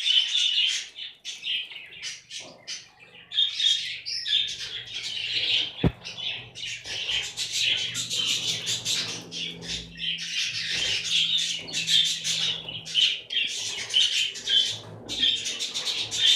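A flock of budgerigars chattering and chirping continuously in an aviary. There is a single sharp knock about six seconds in.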